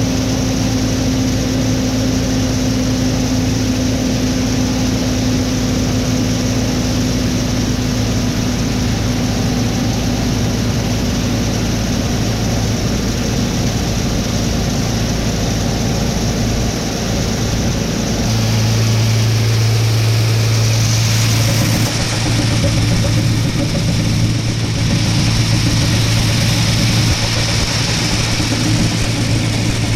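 An engine running steadily at a constant speed, a continuous low hum. A little over halfway through, the low tone grows stronger and the sound shifts, as if under a change of load.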